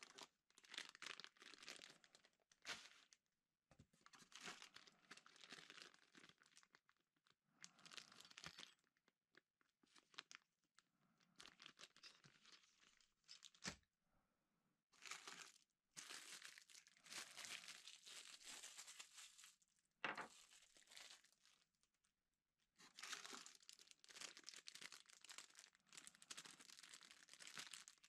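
Faint crinkling and rustling of packaging, plastic bags and styrofoam, handled in repeated bursts of a second or several, with a few light knocks in between.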